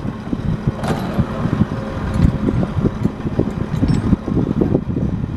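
Steady low machinery rumble with wind gusting on the microphone, and a brief hiss about a second in.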